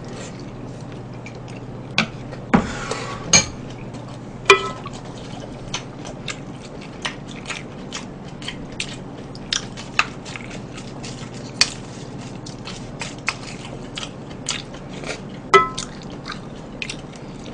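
Eating at a table: chewing, with scattered light clicks and taps of a spoon and utensils against ceramic bowls and a pan.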